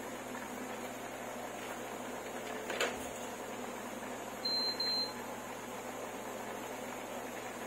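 A kitchen appliance's electronic beeper sounding twice in quick succession, a high steady tone, over steady kitchen background noise; a short knock comes a second and a half before it.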